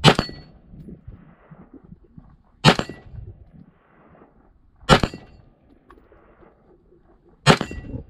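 Four AR-15-style rifle shots fired one at a time, about two and a half seconds apart, each sharp crack followed by a short ring.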